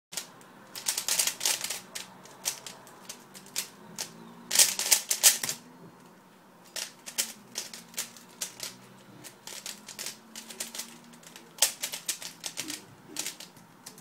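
A MoYu WeiLong v2 3x3 speedcube being turned fast by hand, its layers clacking in quick flurries of clicks with short pauses between them.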